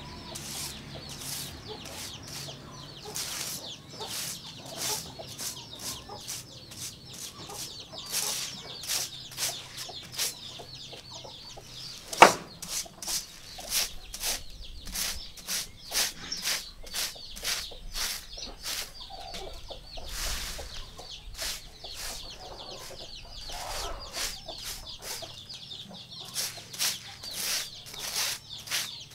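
Repeated swishing strokes of a soft dried-grass broom sweeping litter across a concrete floor, about one or two strokes a second, with hens clucking in the background. One sharp knock about twelve seconds in is the loudest sound.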